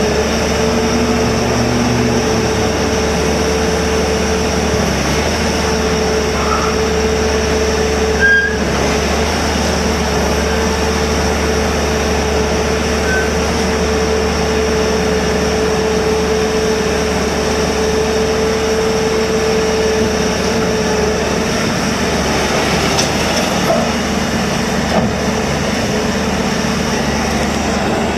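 Bobcat T590 loader's diesel engine running steadily, with a steady whine over it that stops about three-quarters of the way through. There is a single brief knock about a third of the way in.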